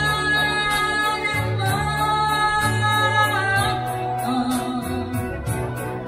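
A man singing live into a handheld microphone over backing music with bass and a steady beat, holding some notes for a second or two.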